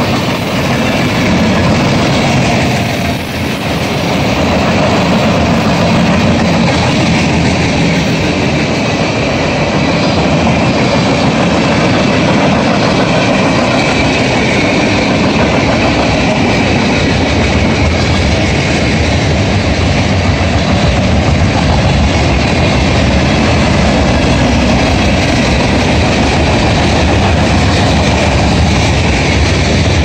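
Freight train of tank cars and covered hoppers rolling past, a steady loud noise of steel wheels running on the rails.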